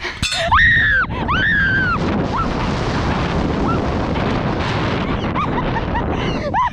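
A person screaming, two long high-pitched screams, as they drop on a bungee jump, followed by loud wind rushing over the microphone during the fall and a few short yelps near the end.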